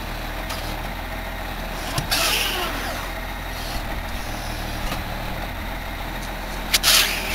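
Tractor engine running steadily while driving a trailed round-bale wrapper whose arm circles a round bale, wrapping it in silage film. Two short hissing bursts come about two seconds in and near the end.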